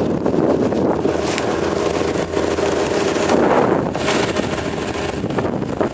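A small boat's 25 hp Mercury outboard running steadily underway, with wind buffeting the microphone.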